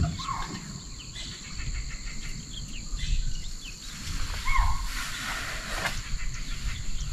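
Open forest and grassland ambience: a steady high insect drone, a few short bird-like calls twice, and a low rumble underneath. A sharp knock at the very start.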